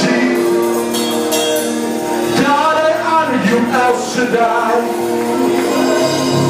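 Live gospel worship music: steady held chords with singing voices rising and falling over them.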